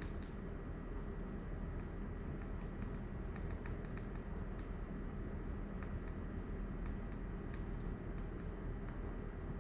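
Scattered light clicks, some in quick little clusters, over a steady low hum.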